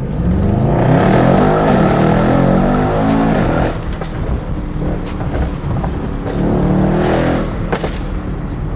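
Mercedes-AMG E63 S's twin-turbo V8 running on fresh spark plugs and ignition coils, revved up and let back down for the first few seconds, settling to idle, then given a second shorter rev about seven seconds in.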